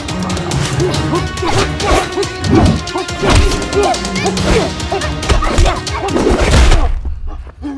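Background music with a string of sharp hits and crashes over it, dropping out briefly near the end.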